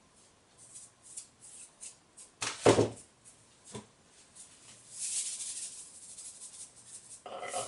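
Salt and a pinch of sugar being shaken out and sprinkled into a pan of creamy curry sauce: a few short rattling shakes, the loudest about two and a half seconds in, then a softer, longer rustle from about five seconds in.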